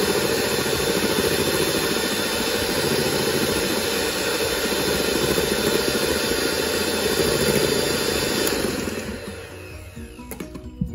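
Electric hand mixer running steadily, its wire beaters whipping cream in a stainless steel bowl. About nine seconds in it fades and stops, and background music begins near the end.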